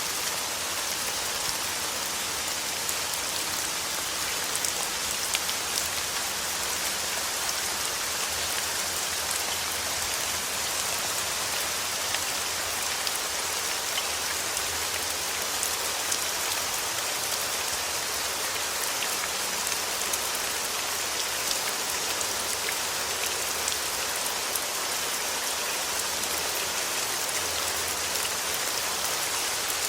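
Steady rain falling: an even hiss with scattered small ticks of drops hitting a surface.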